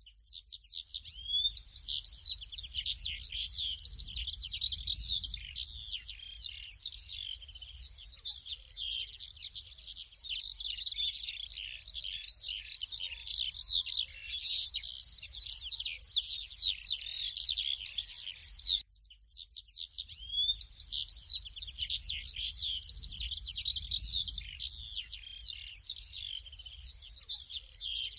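Many small birds chirping and twittering at once in a dense, continuous chorus. It breaks off abruptly about two-thirds of the way through, then resumes about a second later.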